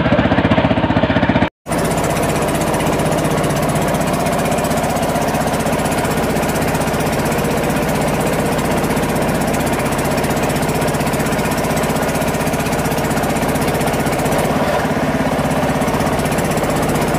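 A small engine running steadily at a fast, even pulse, with a brief cut-out about a second and a half in.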